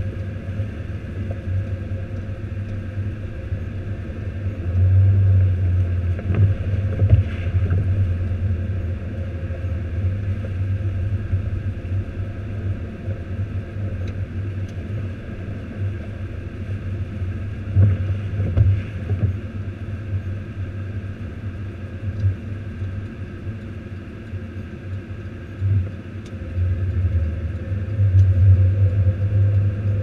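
A car driving slowly over a snow-covered street, heard from inside the cabin: a steady low rumble of engine and tyres that swells for a few seconds at a time, with an occasional knock.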